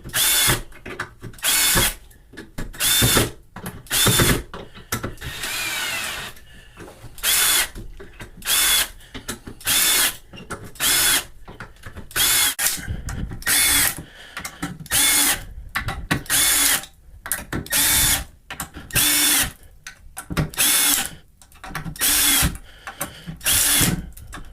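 Milwaukee M12 2401-20 cordless hex screwdriver driving 1-inch screws into a 2x4 in quick succession: short bursts of motor whine about once a second, one per screw. One run about five seconds in lasts longer.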